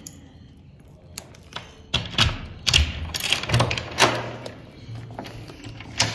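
A key rattling and clicking in a door lock, with keys jangling and a few knocks, as a door is unlocked: a run of sharp clicks starting about two seconds in.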